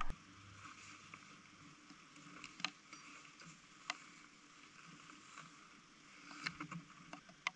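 A few faint sharp clicks and small knocks of tools and a backpack being handled, over a quiet outdoor background.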